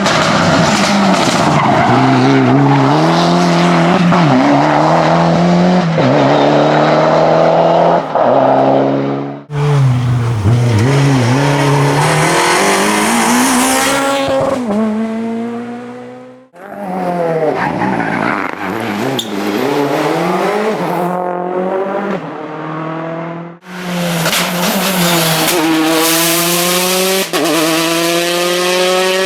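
Rally cars at full throttle on a special stage, engines revving up and dropping back through gear changes. Four separate runs follow one another, each cut off abruptly.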